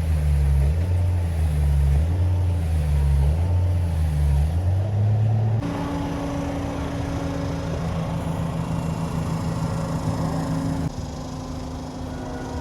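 Heavy diesel truck engine running at a concrete pour. At first its pitch dips and recovers in a steady cycle about once a second; then it changes abruptly to a steady, even drone, with another sudden drop in level near the end.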